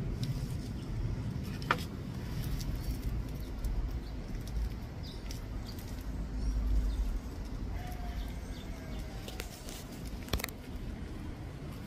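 Outdoor background with a steady low rumble, a few sharp clicks and rustles as the plastic bag of an air layer is handled and tied with string, and a faint bird call about eight seconds in.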